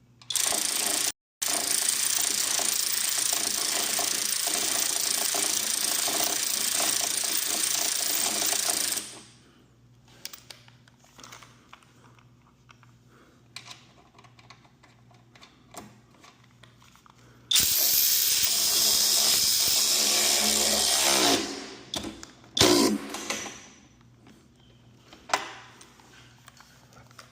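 A power tool motor running in two long runs, the first about eight seconds and the second about four, winding down with a falling pitch as it stops. Faint clicks and knocks fill the gap between the runs.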